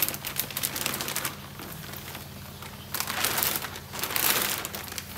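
Large plastic fish-shipping bag crinkling and rustling as it is handled and lifted from a styrofoam box. The crinkling is busiest in the first second and again from about three seconds in, with a quieter lull between.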